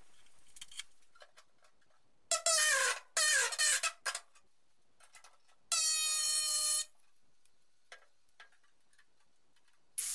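Pneumatic air drill whining in short runs: two brief bursts that fall in pitch as the drill slows, then a steady run of about a second, drilling a bolt hole for the seat bracket in the car's floor sheet metal. An angle grinder starts up right at the end.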